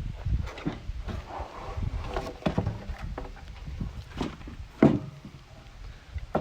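Scattered knocks and clunks of wood and tools being handled, with one sharp knock about five seconds in, over a low steady hum.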